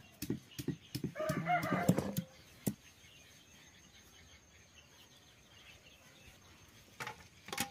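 A stone pestle knocking and grinding on a flat stone slab, crushing a root into paste: a quick run of knocks, then a pause of a few seconds, then more knocks near the end. A short clucking call, like a chicken's, sounds about a second in.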